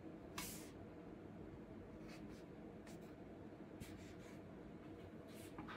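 Quiet room tone with a steady low hum and a few faint, short hissing rustles, the clearest about half a second in.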